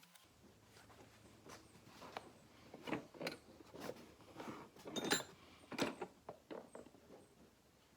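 Faint, irregular clicks and knocks, one or two a second, like small objects being handled.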